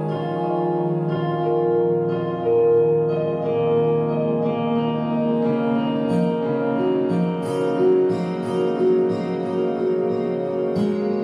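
Instrumental background music with long held notes; quicker, sharper-struck notes come in about six seconds in.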